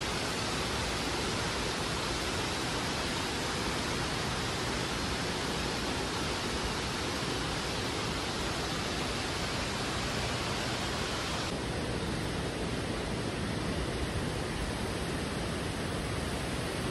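Steady rushing hiss of falling water from indoor waterfalls and an indoor river, turning duller about two-thirds of the way through.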